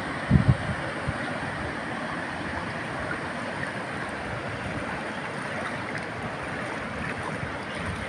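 Steady rushing noise of river water and wind, with a couple of low wind buffets on the microphone about half a second in.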